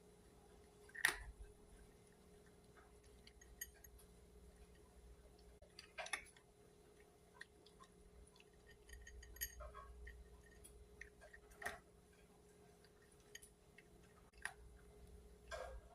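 Black cat eating, with irregular small clicks and crunches as it chews its food. The loudest click comes about a second in.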